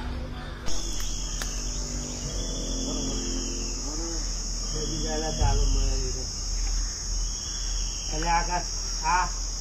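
A steady, high-pitched drone of insects, setting in about a second in. Faint voices of people talking can be heard over it.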